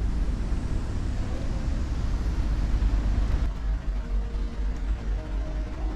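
Steady low rumble and hiss of ambient noise on a ferry's open deck. The hiss drops away about three and a half seconds in.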